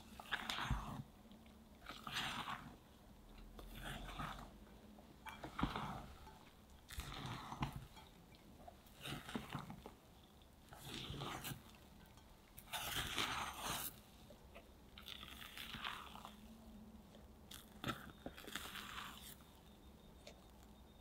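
A spatula folding sifted flour into whipped egg foam in a glass bowl for sponge batter. Each stroke gives a soft, wet scraping swish, one every one to two seconds.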